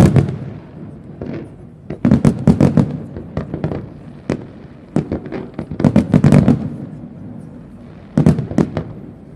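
Fireworks display: volleys of rapid sharp bangs and crackles, coming in clusters a couple of seconds apart, with a lower rumble between them.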